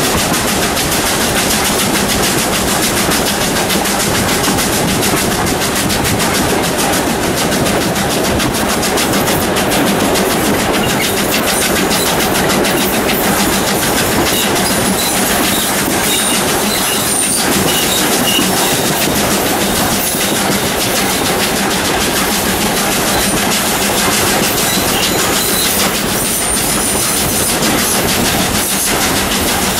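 Steam locomotive 621 working its train up a grade: a steady, loud, unbroken noise of the engine running and the train's wheels on the rails.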